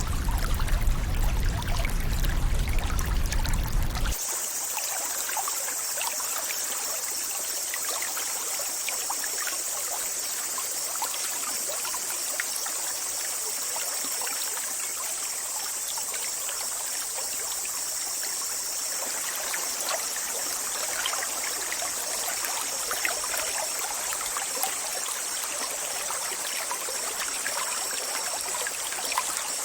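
Running water: a heavier, deeper rush for about the first four seconds, then a sudden cut to a trickling stream with a steady high hiss over it.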